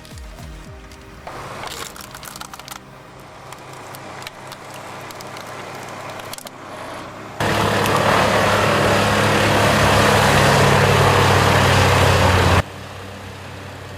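Heavy engine-driven wood-processing machinery: irregular crackling and knocking of wood being worked, then about halfway in a much louder machine running hard with a deep engine hum for about five seconds, which cuts off abruptly.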